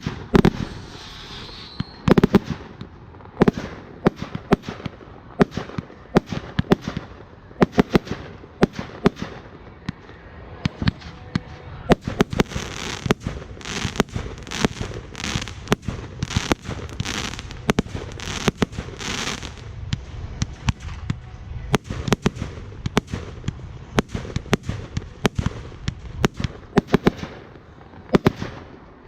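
Fireworks going off: an irregular run of sharp bangs and pops, often several a second, with stretches of hissing between about twelve and twenty seconds in.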